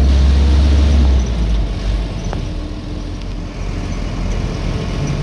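An old car's engine and road noise heard from inside the cabin while it drives slowly. The loud, deep engine drone drops away about a second in, leaving a lower, rougher running sound.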